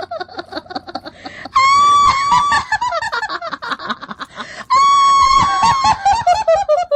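Ghost-laugh sound effect: a rapid cackling laugh in quick pulses that falls in pitch, broken twice by a long high-pitched shriek, about one and a half seconds in and again near five seconds.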